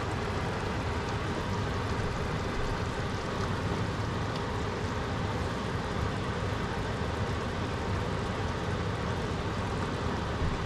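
Steady hum and hiss of stovetop cooking on a gas range, with a pan of curry chicken simmering; no separate clatter or bubbling stands out.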